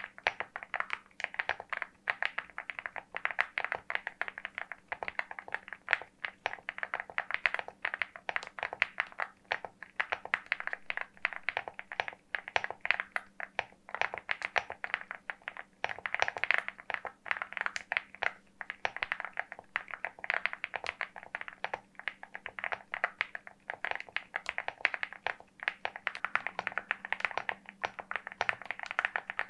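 Continuous fast typing on the LEOBOG Hi75 aluminium mechanical keyboard: a dense, even stream of keystroke clacks with no pauses. A faint steady hum sits underneath.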